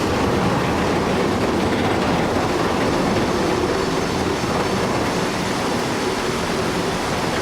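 A loud, steady mechanical rumble with a dense clatter and hiss that holds evenly throughout, with no clear pitch and no single impacts.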